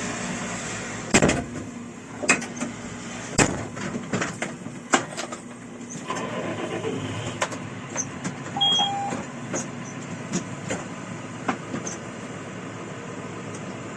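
Harvest machinery running with a steady engine noise, broken by irregular loud clanks and knocks, thickest in the first five seconds. A short high tone sounds about nine seconds in.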